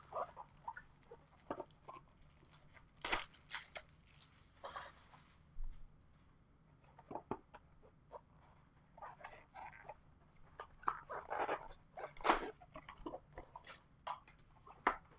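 A sealed box of trading cards and its packs being opened by hand: crinkling, tearing and rustling of wrapper and cardboard in short, scattered bursts, with a quieter pause about a third of the way in.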